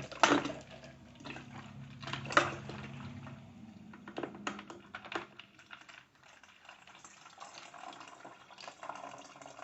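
Scattered light clicks and knocks of kitchen things being handled, over a low hum that fades out about three seconds in.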